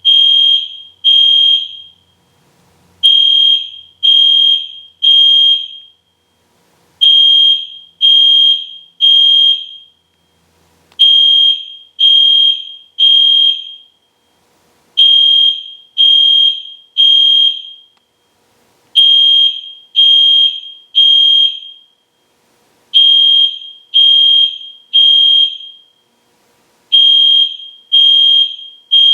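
EST Genesis fire alarm horn sounding a loud, high single-pitched beep in groups of three, each group repeating about every four seconds: the temporal-three evacuation signal.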